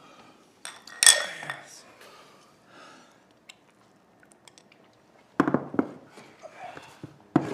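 Ceramic drinking bowls clinked together in a toast about a second in, with a short ringing tone. Then the bowls are set down on a wooden table with two sharp knocks near the end.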